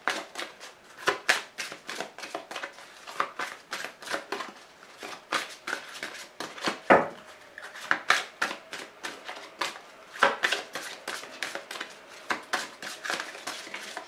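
Oracle card deck being shuffled by hand: a continuous run of irregular papery slaps and flicks of cards against each other, a few louder than the rest.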